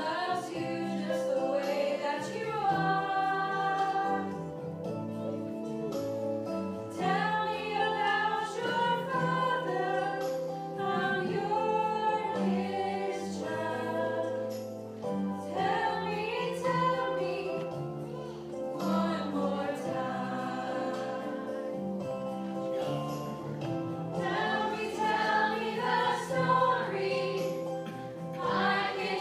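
Two girls singing a song as a duet into a microphone, over instrumental accompaniment with sustained chords.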